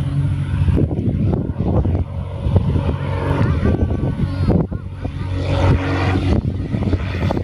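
Piston engine of a World War II warbird running with a steady low drone as the aircraft moves along the runway.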